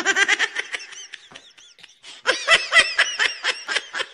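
A person laughing in two runs of quick, pitched bursts: the first dies away about a second in, and a second, louder run starts about two seconds in and tails off.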